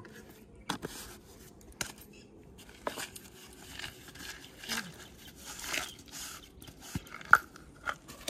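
Plastic jars and bottles being handled as bait is mixed: a few sharp clicks and knocks of lids and containers, with rustling and scraping in the middle as the contents are shaken out.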